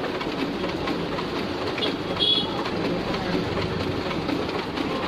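Canon imageRUNNER Advance 6265 copier running a copy job, its document feeder pulling originals through: a steady mechanical rumble with rapid clicking. A short high chirp sounds about two seconds in.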